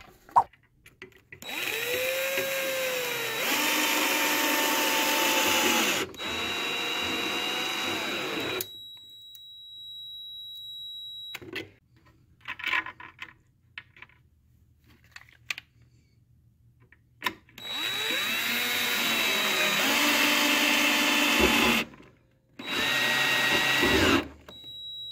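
Cordless drill/driver driving #8 × 2-inch Torx-head screws through a 3D-printed plastic tool rack into a wooden bench. There are two long runs about ten seconds apart, and the motor's pitch shifts as each screw drives in.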